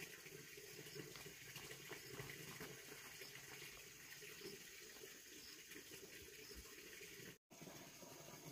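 Faint steady running water with a few soft knocks; the sound cuts out for an instant near the end.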